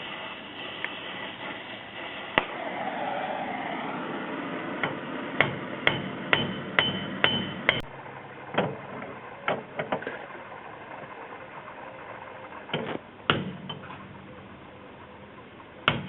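Hammer blows on heat-soaked, broken rear wheel lug studs, driving them out of the hub. About a dozen sharp metal strikes come roughly two a second through the middle of the stretch, some with a short metallic ring, then two more a few seconds later, over a steady hiss.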